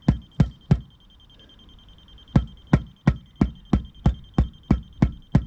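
Rubber mallet tapping a paving slab down into a mortar bed, about three knocks a second with a pause of about a second and a half near the start. A laser level's receiver bleeps at a high pitch throughout, a sign that the slab is still a few millimetres above the set level.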